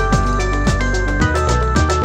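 Upbeat electronic background music with a steady drum beat and a bass line.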